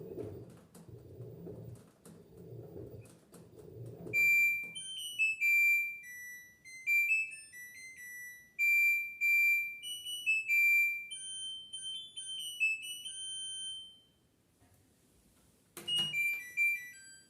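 LG F10B8MD washing machine at the end of its cycle: a few seconds of low rumbling and clicks from the machine, then its electronic end-of-cycle melody of clear beeping notes, signalling the wash is finished. Near the end a click and a short beep tune follow.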